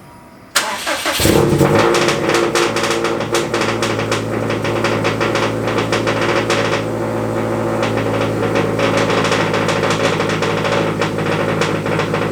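Subaru WRX STI's turbocharged flat-four engine starting about half a second in and settling into a steady, loud idle.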